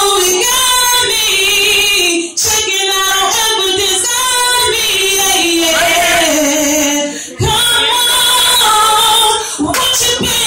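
A woman singing an R&B song live, holding long, wavering runs without words, with short breath breaks about two and seven seconds in.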